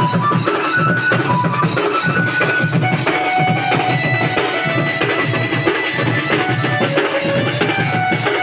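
A street drum band: many stick-beaten, shoulder-slung drums played together in a steady driving rhythm, with sharp high strikes, and a high melody of short held notes over the drumming.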